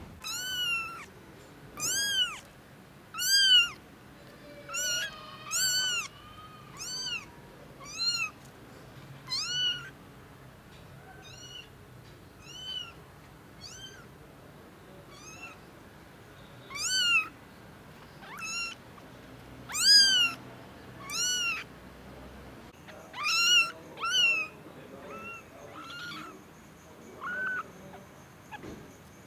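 Kitten mewing: a long string of short, high, arching cries, roughly one every second or so, some coming close together.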